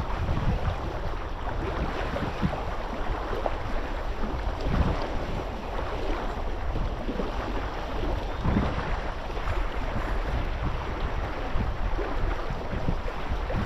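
Wind buffeting the microphone in uneven gusts over a steady wash of water.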